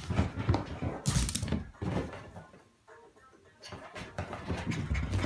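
Irregular thumps and scuffles of a shih tzu dashing about and leaping onto a leather armchair, in two spells with a short quieter lull between.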